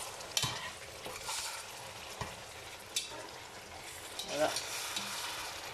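Sliced aubergines, onions and peppers sizzling in a stone-coated frying pan as they are stirred with a spatula. The steady frying hiss is broken by a few short scrapes and knocks of the spatula against the pan.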